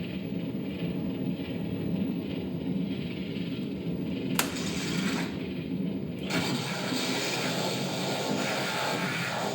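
Proton pack and Neutrona wand sound effects played loud through an added Bluetooth speaker: a steady low electronic hum. There is one sharp click about four seconds in. From about six seconds in, a louder rushing hiss joins.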